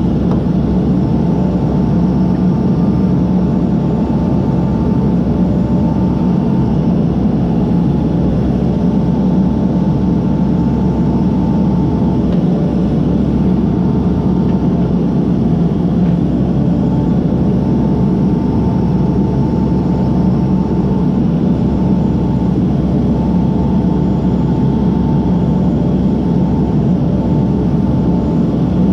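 Case backhoe's diesel engine running steadily under work, with a faint whine that comes and goes.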